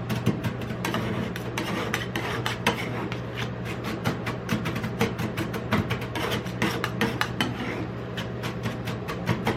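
Metal spatulas rapidly chopping and scraping on the steel freezing plate of a rolled-ice-cream stand, working Lay's potato chips into the ice cream base. A quick clatter of many taps a second over a steady low hum.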